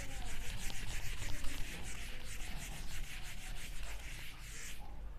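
Whiteboard duster rubbing rapidly back and forth across a whiteboard, wiping off marker writing in quick scrubbing strokes that stop near the end.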